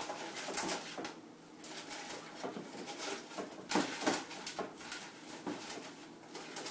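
Rustling, crinkling and light clicks of artificial berries being handled and spread out by hand.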